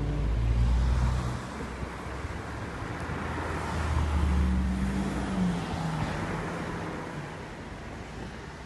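A motor vehicle passes by. Its engine and tyre noise swell to a peak about four seconds in, then fade, over a steady rushing background.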